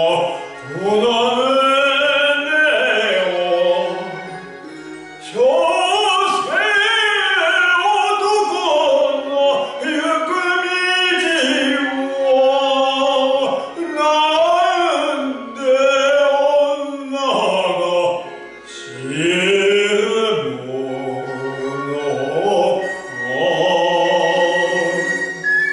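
A man singing a Japanese song solo in an operatic style, in long sustained phrases with a wide vibrato and short breath pauses between them.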